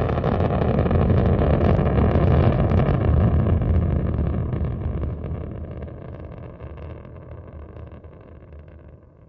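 Rocket engine rumble at launch, starting suddenly, strongest for the first few seconds, then fading steadily away.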